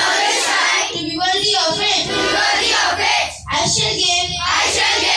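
A group of children's voices reciting a pledge together in unison, with a short pause about three and a half seconds in.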